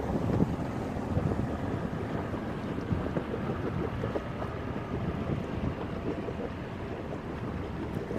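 Wind buffeting the microphone of a camera on a sailboat's stern rail as the boat moves through the water, with the wash of water along the hull underneath. A steady, uneven low rumble with constant flutter.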